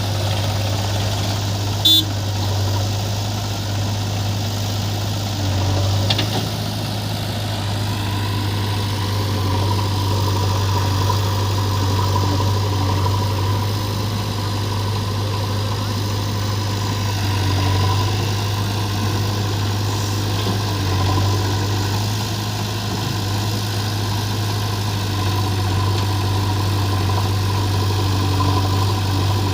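Diesel engine running at a steady idle, a constant low hum with a faint steady whine above it. A short sharp click about two seconds in.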